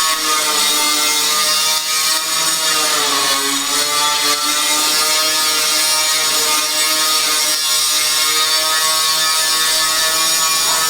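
A power tool's motor running steadily with a high whine and hiss, its pitch dipping briefly about three seconds in as it comes under load.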